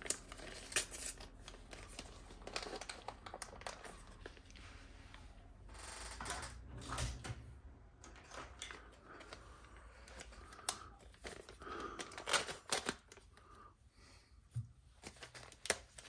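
Irregular small clicks, taps and scraping rustles of hands handling and prying apart small plastic and metal RC truck parts on a workbench.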